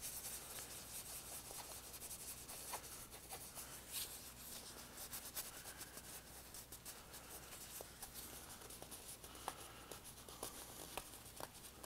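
Fingers rubbing an adhesive Tenacious Tape repair patch down onto a nylon down jacket's shell to bond it: faint rustling and rubbing of the nylon fabric with scattered small clicks.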